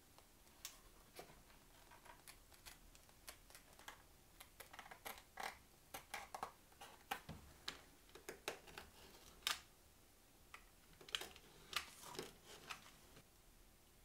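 Leather being cut by hand with heavy scissors and a snap-off utility knife: faint, irregular snips and crisp clicks, bunched several a second at times, the loudest about nine and a half seconds in.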